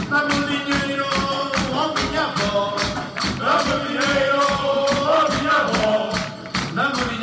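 Live Mirandese folk music: bass drums (bombos) beating a steady rhythm of about four strokes a second, with a man singing a melody over them.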